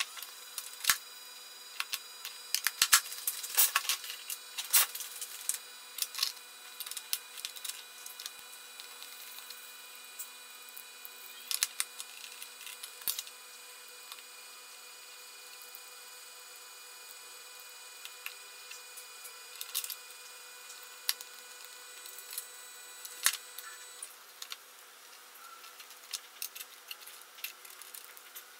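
Scattered small clicks and taps of a cordless drill's plastic and metal gearbox parts being handled and picked at with a thin metal tool on a wooden bench, some in quick clusters.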